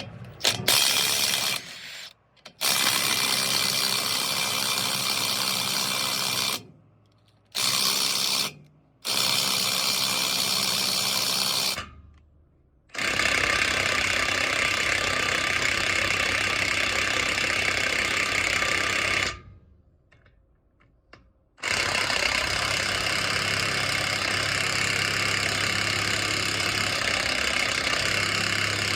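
Cordless impact wrench hammering on the chipper-knife bolts in six runs of about one to six seconds each, stopping between them.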